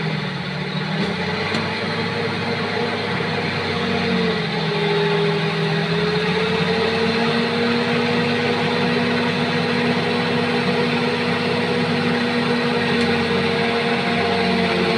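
Bulldozer's diesel engine running under throttle, its note dipping briefly near the start and again about four seconds in before holding steady.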